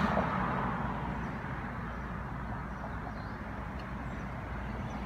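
Road traffic: the noise of a passing vehicle fades over about the first second, leaving a steady low traffic rumble.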